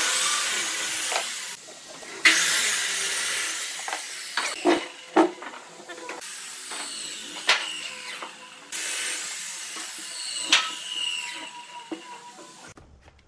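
Long stretches of loud hissing noise, broken by sharp clicks and knocks from steel pliers cutting binding wire and from wooden pieces being handled on a workbench.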